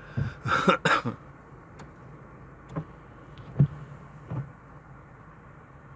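Steady in-car background noise from the moving car and its fan, broken in the first second by a loud cluster of rustling knocks, then a few single soft knocks scattered through the rest.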